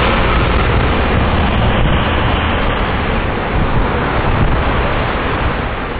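Steady, loud wind rumble on a bike-mounted camera's microphone during riding, with road traffic mixed in underneath.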